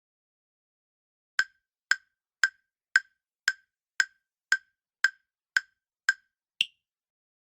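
Quiz countdown-timer sound effect: eleven short, sharp wood-block-like ticks about two a second, the last one higher-pitched, marking the time left to answer.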